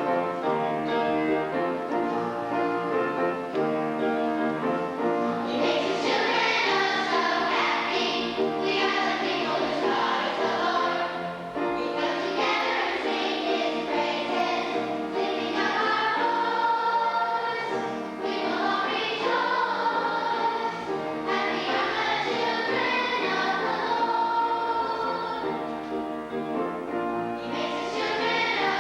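A church choir singing a song, many voices together in sustained phrases.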